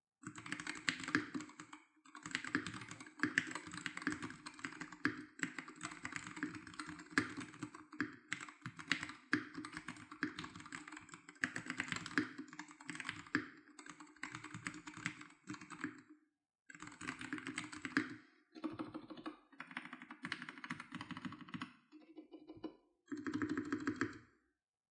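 Fast typing on a MelGeek Mojo68 mechanical keyboard fitted with Kailh Custom Tactile switches: rapid runs of key clacks, broken by short pauses a few times, with a last short burst near the end.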